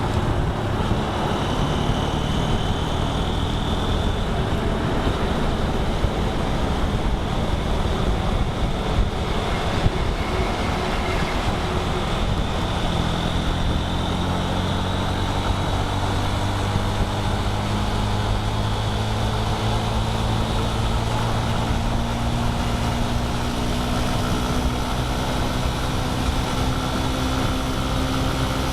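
A vehicle's engine running at highway speed over heavy road and wind noise, its pitch rising slowly through the second half.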